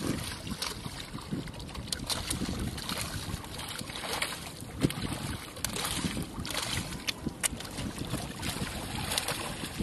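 Sargos (white seabream) thrashing at the surface of shallow water at the shoreline: irregular splashes and slaps, one sharper than the rest about five seconds in, over lapping water and some wind on the microphone.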